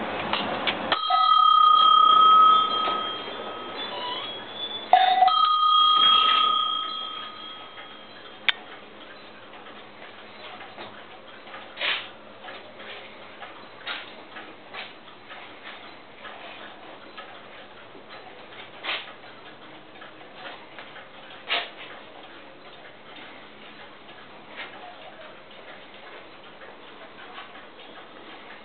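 Many clocks ticking together. In the first several seconds there are two loud, held ringing tones, likely clock chimes or bells. After that, steady fine ticking continues, with an occasional louder click every couple of seconds.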